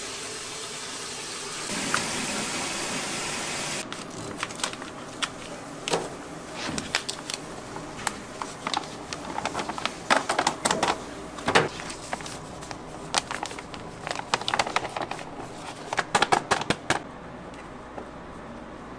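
A tap runs steadily, then cuts off about four seconds in. Irregular clattering follows: kitchen clinks and knocks, with a denser run of sharp clinks near the middle and again near the end.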